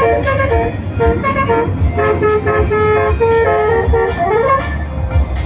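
Telolet multi-tone musical bus horn playing a quick tune of short notes, with a rising glide about four seconds in, over a steady low engine rumble.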